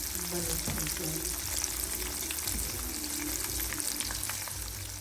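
Battered oyster mushrooms deep-frying in hot oil: a steady sizzle full of small crackles and pops.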